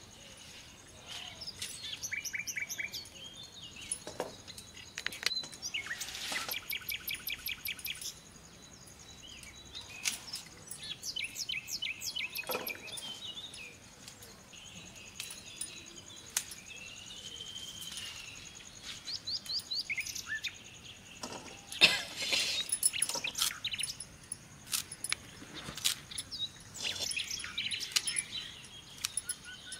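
Several birds chirping and calling, in runs of quick repeated high notes and trills, with one drawn-out rising-and-falling whistle about halfway through. Scattered sharp snaps, the loudest about three-quarters of the way in, come from greens and their stems being cut on a hooked blade.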